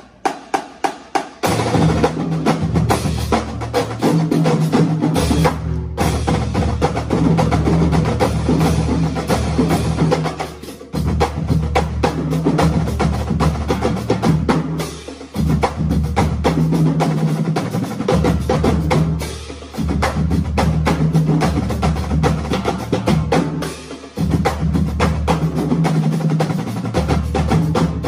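High school marching drumline playing: snare drums, tenor drums, tuned bass drums and cymbals. It opens with a few sharp stick clicks, and the full line comes in about a second and a half in, with a few brief breaks later on.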